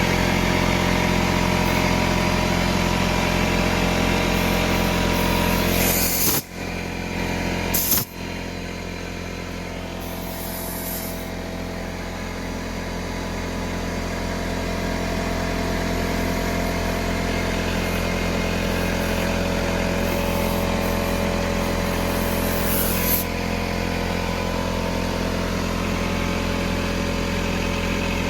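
Air compressor running steadily while a motorcycle tire is being inflated. It is interrupted abruptly twice, about six and eight seconds in, with a few short hisses.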